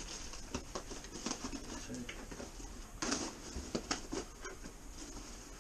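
Hands rummaging in a cardboard shipping box, rustling paper and scraping cardboard in irregular bursts, with a few sharper clicks; the loudest comes about three and four seconds in.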